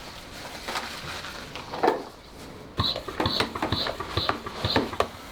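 Hand-work noises: a knock about two seconds in, then a quick run of six short clicks, about two a second, each with a brief hiss.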